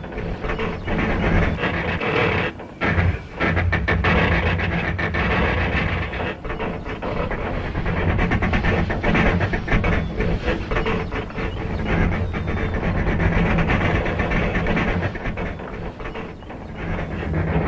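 Classic 1970s film-and-TV metal-creaking sound effect: a continuous, grinding groan and creak of metal straining, with a short break a few seconds in. It is the stock sound for metal fatigue, something being bent or forced apart.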